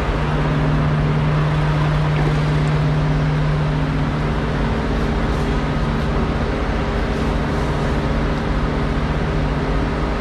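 Steady hum and rumble of idling diesel trucks at a truck-stop fuel island, with a constant low drone that is strongest for the first few seconds.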